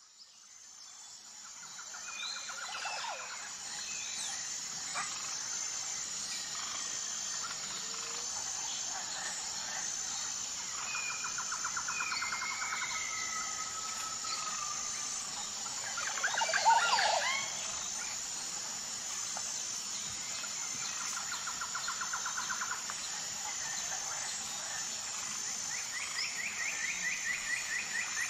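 Background nature soundscape fading in: assorted birds chirping and trilling over a steady high-pitched hum, with a louder flurry of calls about two-thirds of the way through.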